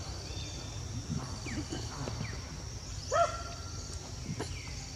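Forest ambience: a steady high insect drone with a few short falling chirps. About three seconds in, one short animal call rises and then holds its pitch, louder than everything else.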